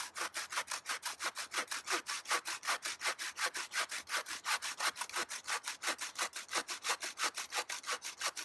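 Homemade bow saw, a steel saw blade strung on a bent green sapling frame, cutting through a dead tree trunk in quick, even back-and-forth strokes, several a second. The wood is dead but not fully dry, and the blade cuts easily.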